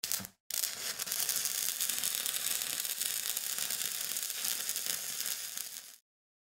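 Sparks sound effect: a short crackle, a brief break, then a steady sizzling crackle of burning sparks that fades out shortly before the end.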